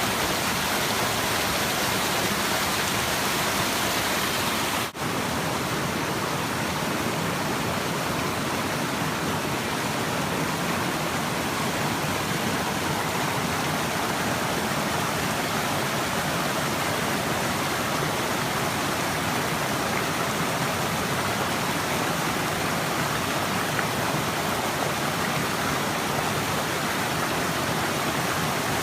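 A small waterfall rushing and splashing steadily, with a momentary dropout about five seconds in.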